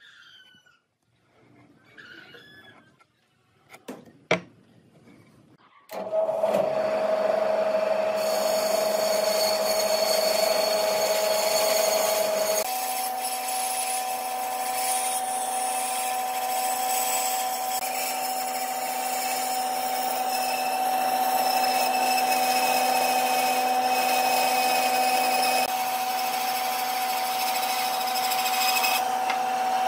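Faint handling sounds and a sharp click, then an electric power tool starts about six seconds in and runs steadily with a loud hum, its pitch stepping up about a third of the way through.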